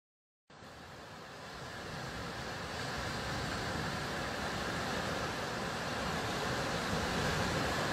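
Sea surf washing onto a sandy beach, a steady rushing that starts suddenly about half a second in and slowly grows louder.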